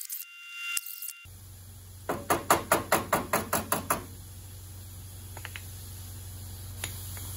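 A rapid run of about ten sharp knocks, about five a second, followed by a steady low hum.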